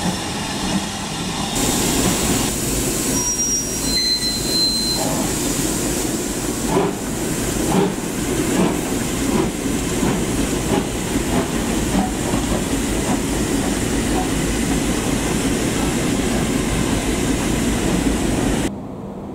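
BR Standard Class 4MT 2-6-0 steam locomotive 76084 moving off tender-first: steam hissing, a couple of brief high-pitched squeals, then a regular beat of exhaust chuffs as it gets under way. The sound drops away abruptly just before the end.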